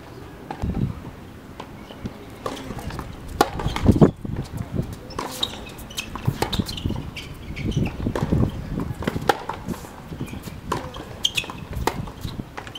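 Tennis ball struck by rackets and bouncing on a hard court during a rally: sharp knocks at irregular intervals, the loudest about four seconds in.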